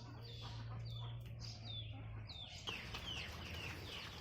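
Chickens calling, a string of short high chirps each falling in pitch, over a steady low hum that stops about two seconds in.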